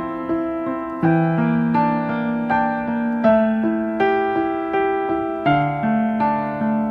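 Background music: a slow piano melody, each note struck and then fading.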